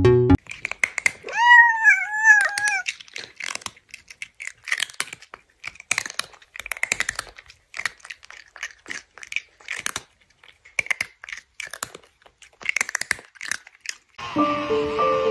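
Cartoon eating sound effects: a long run of irregular crunching and munching, opened by a short wavering high-pitched cry like a cat's meow about a second in. Music cuts off just after the start and a new piece of music starts shortly before the end.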